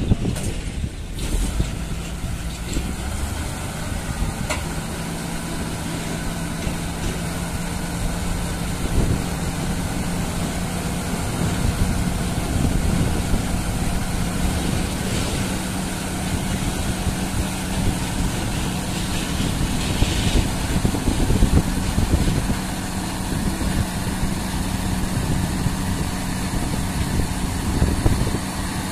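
Dump truck's diesel engine running steadily while driving the hydraulic hoist that tips the loaded body, with a steady low hum setting in about a second in and holding while the body lifts.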